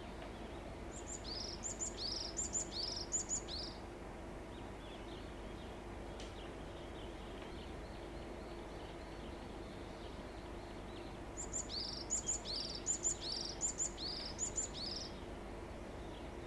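Varied tit singing two phrases several seconds apart. Each phrase repeats a two-part note about five times: a thin high note followed by a lower, falling one.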